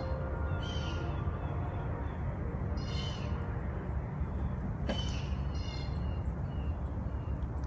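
Bald eagle calling: several short, high-pitched calls spaced a second or two apart, over a steady low background rumble. A single sharp click sounds about five seconds in.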